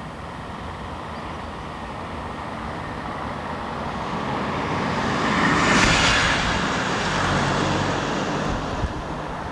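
A road vehicle passes close by, its noise swelling to a peak about six seconds in and then fading, over the low, steady rumble of a freight train hauled by a Class 56 diesel locomotive moving away into the distance.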